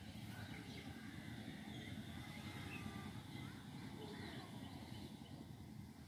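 Faint scattered chirps of small birds over a steady low rumble of outdoor background noise.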